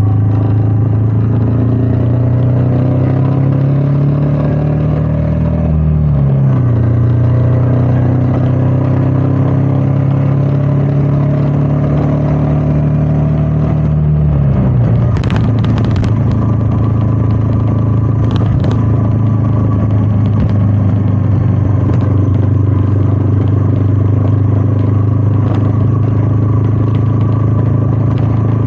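Royal Enfield Meteor 350's single-cylinder engine running under way, heard from the rider's position with wind on the microphone. The revs climb slowly, then drop sharply about six seconds in, climb again and fall about fourteen seconds in to a lower steady pitch, with a few sharp clicks soon after.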